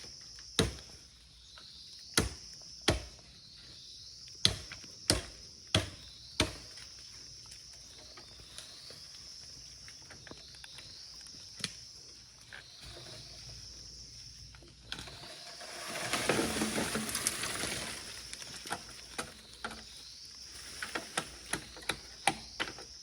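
A series of sharp chopping strikes, roughly one every half second to second, for the first six seconds. A louder burst of rustling noise follows about midway, then lighter quick taps near the end, with a high chirping running underneath throughout.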